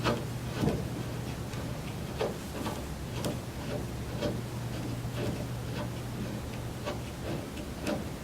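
Irregular light clicks and taps of a pedal's threaded spindle being turned by hand into a recumbent exercise bike's crank arm, over a steady low hum.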